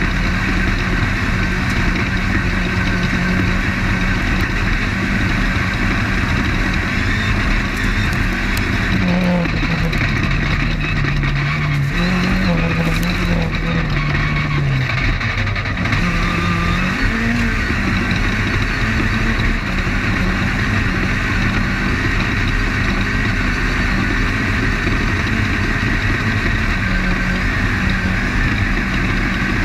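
Off-road race car's engine running under way, heard from on board, over a constant din of wind and chassis noise. About a third of the way in, the engine note sags and wavers for several seconds, then climbs back up as the car gets back on the throttle.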